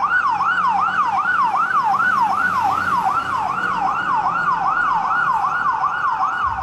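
Fire engine's electronic siren on a fast yelp, its pitch sweeping up and down about three times a second without a break.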